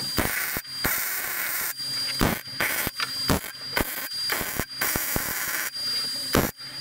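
MIG welding arc crackling and hissing on thick steel frame plate, laid down in short runs broken by several brief pauses.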